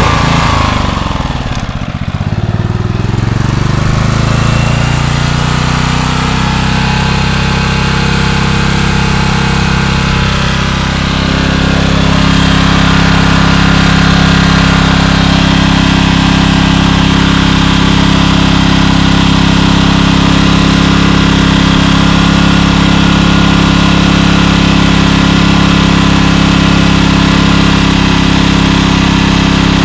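Generac 4000-watt portable generator's engine catching right at the start and speeding up over the first couple of seconds, then running steadily. About eleven seconds in, it settles into a slightly louder, even running speed.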